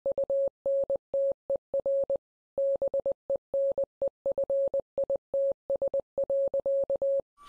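A single mid-pitched electronic beep tone keyed on and off in short and long pulses, like Morse code, with a half-second pause a little after two seconds in.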